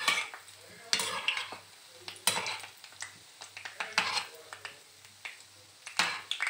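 Metal spoon scraping and knocking against a ceramic-coated frying pan as it turns semolina balls in shallow oil, in irregular strokes every second or two, over a faint sizzle of the frying oil.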